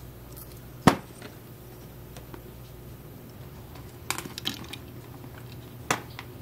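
Sharp clicks and light knocks of small plastic RC-car chassis parts and wiring being handled and fitted together: one loud click about a second in, a quick cluster of smaller clicks around four seconds, and another click near the end.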